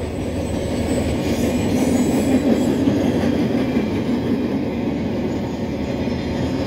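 Norfolk Southern work train loaded with long rail rolling past at speed: steady noise of steel wheels on the rails.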